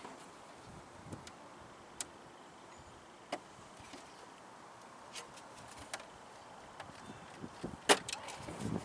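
A handful of light, sharp clicks and taps spread out over several seconds against a faint background, typical of hands handling a radio-controlled car's plastic body and parts.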